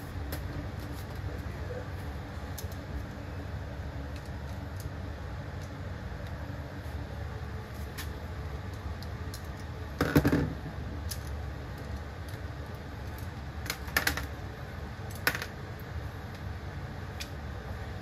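Small clicks and taps of screws and metal parts being handled as a box fan motor is taken apart, over a steady low background hum. A louder clunk comes about ten seconds in, and a few sharper clicks follow a few seconds later.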